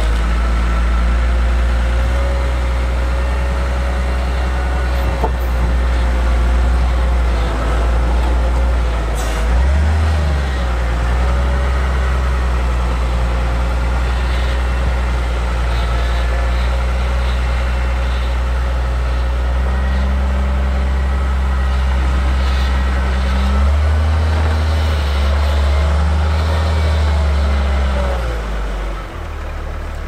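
Diesel engine of a heavy snow-clearing machine running steadily, revving up briefly about a third of the way in and again for a few seconds near the end, with a faint whine that rises and falls with the revs.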